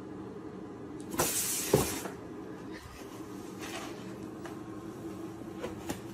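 Cardboard tissue box scraping across a tile floor for under a second, ending in a sharp knock, over a steady low hum.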